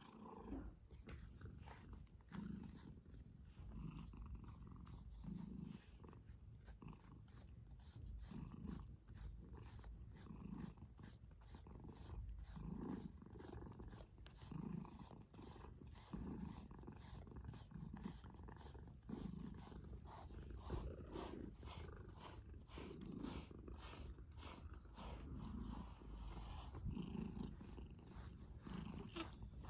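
Domestic cat purring close up, the purr swelling and easing with each breath every second or two, with faint light clicks throughout.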